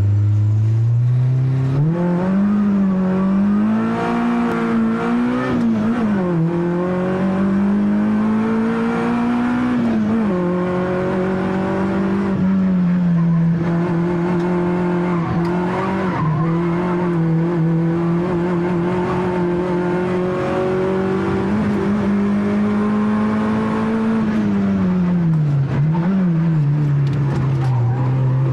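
Peugeot 106 Rallye's four-cylinder engine heard from inside the cabin, pulling hard away from a standing start and then revving high up a hillclimb course. The pitch climbs steeply over the first two seconds, then rises and drops again and again with gear changes and lifts for bends.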